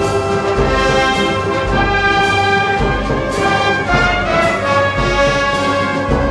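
Brass band playing Moros y Cristianos festival music, with sustained brass chords over a slow, heavy bass drum beat about once a second.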